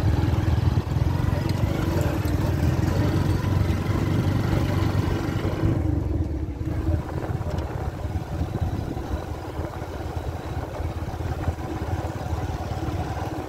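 Motorcycle engine running as the bike rides along with passengers aboard, heavy rumble mixed with wind on the microphone, easing a little in the second half.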